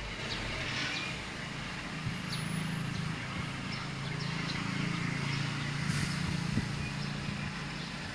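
Machinery running: a steady low hum that grows firmer about two seconds in, under a broad rushing noise.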